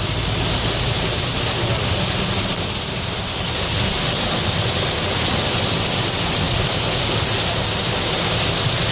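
Heavy rain on a moving car, with tyres hissing through water on the wet road, heard from inside the cabin: a loud, steady hiss.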